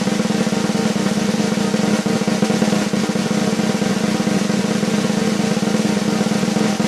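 A long, steady snare drum roll, sustained at an even level without a break: the suspense roll used before an announcement or the reveal of an answer.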